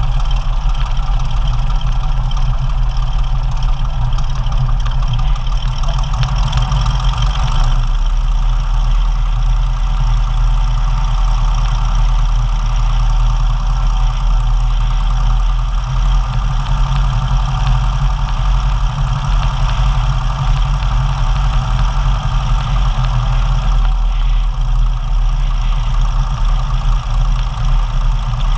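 Single-engine light aircraft's piston engine and propeller idling steadily at low power during taxi.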